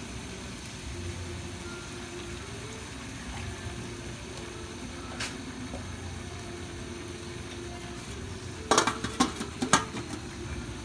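Chicken and vegetables frying in a pan, a low steady sizzle. Near the end comes a quick cluster of sharp clicks and knocks from cookware being handled.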